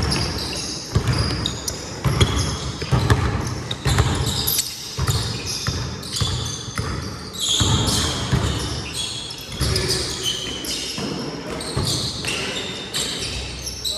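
Basketball play on an indoor court: a ball bouncing repeatedly in low thuds, with short high shoe squeaks and some players' voices.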